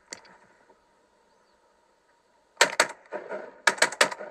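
Shotgun volley at incoming ducks: two quick shots about two and a half seconds in, then three or four more in rapid succession a second later, each followed by a rolling echo.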